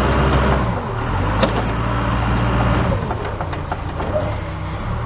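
Backhoe engine running steadily under snow-clearing work, its pitch dropping about a second in, with a few light clanks.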